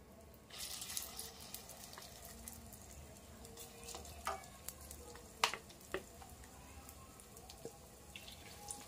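Egg-and-flour batter sizzling in hot oil in an apem mould pan, just after it was poured in. The sizzle starts about half a second in and carries on faintly, with a few sharp pops or clicks in the middle.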